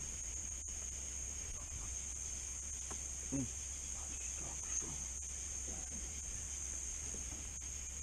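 Steady high-pitched chorus of night insects, crickets, with a faint low hum underneath.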